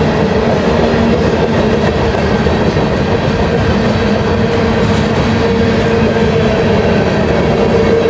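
Freight cars (covered hoppers and boxcars) rolling past, a steady, unbroken noise of steel wheels running on the rails.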